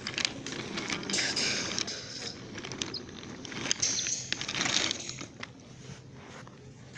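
Toy train cars being handled and pushed: irregular plastic scraping and rolling with small clicks, rising in two stretches.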